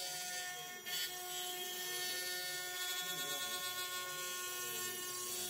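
CNC router spindle running with a steady high whine while its bit cuts a circular groove into a wooden board, one of several shallow passes. A lower whine rises and falls as the head moves, and there is a brief dip and click about a second in.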